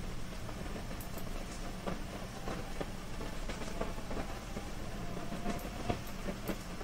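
Steady low background hum with scattered faint clicks and taps, like room noise picked up by a desk microphone while a computer is worked by hand.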